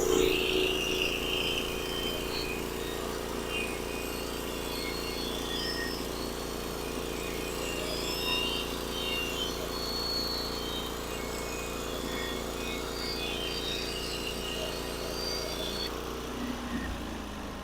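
Sawmill running steadily as it cuts a one-inch board off the top of a pine log, with short high chirps scattered through; the sound dies away about a second before the end.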